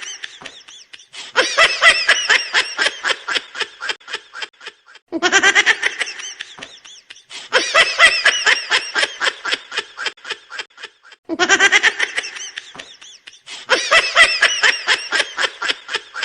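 A baby laughing: high-pitched squeals breaking into runs of quick, breathy giggles, several seconds at a time with short gaps between. The same laugh repeats about every six seconds.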